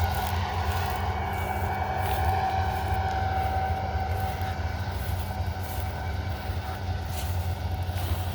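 Claas Lexion 8900 combine harvester running steadily as it harvests wheat: a deep, even engine drone with a steady whine above it.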